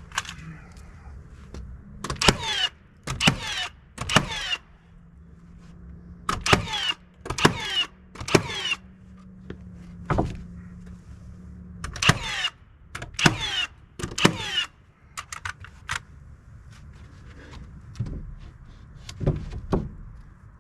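Nail gun firing nails through poplar siding slabs, in sets of about three shots a second apart, each shot followed by a short falling whine.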